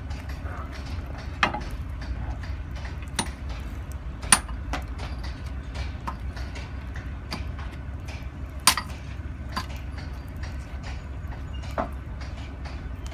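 Irregular sharp metallic knocks and taps of a hand hammer striking the steel joint of a pile, with a few louder strikes among many lighter ones, over the steady low hum of an idling engine.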